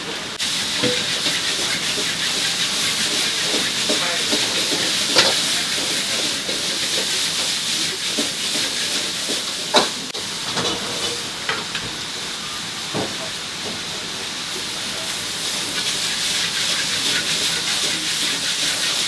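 Vegetable stir-fry hissing and sizzling steadily in a wok over high heat, with a few sharp clanks of the utensil against the pan.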